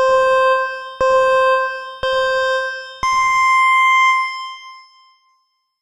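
Electronic countdown tones: three beeps on the same pitch a second apart, then a fourth beep an octave higher that rings longer and fades away.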